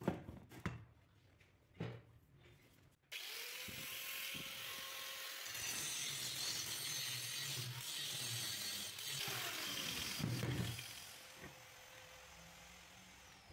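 A few sharp knocks, then about three seconds in an angle grinder starts and grinds steel in a steady, loud run of about eight seconds before the sound drops away near the end.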